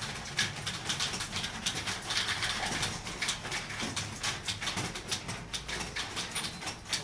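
Typing: a fast, irregular run of key clicks, several a second, over a low steady hum.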